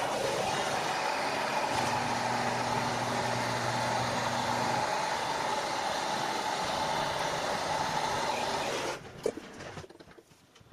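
A heating tool blowing with a steady rushing hiss, heating a rust-seized bolt on a vise; it shuts off abruptly about nine seconds in, followed by a few light metallic clicks and taps.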